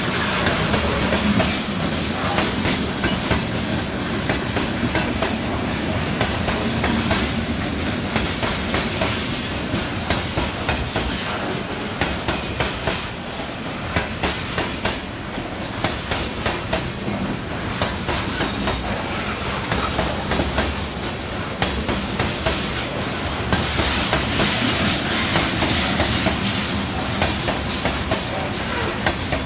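Freight train cars rolling past at close range, their wheels clicking steadily over the rail joints. The sound grows louder and hissier near the end.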